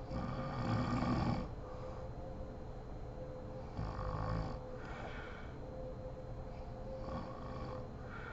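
A sleeping woman snoring: three snoring breaths about three seconds apart, the first the loudest.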